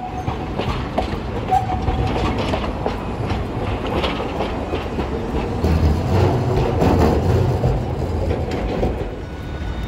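A Hiroden streetcar passing close by, its steel wheels clacking over rail joints and the junction's crossing track. The rumble swells to its loudest about six to seven seconds in, then eases. There are two brief high squeals in the first two seconds.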